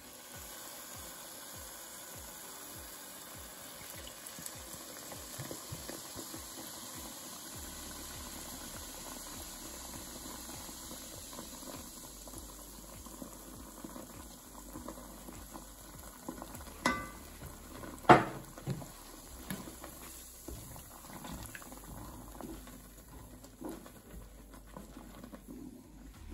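Amber ale foaming and sizzling in a hot pot of dark roux and chopped vegetables, stirred with a wooden spoon, a steady hiss throughout. Two sharp knocks come about two-thirds of the way through.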